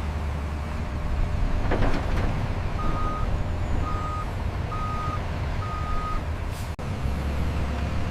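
Reversing alarm beeping four times, about once a second, over the steady low rumble of a heavy construction vehicle's engine running.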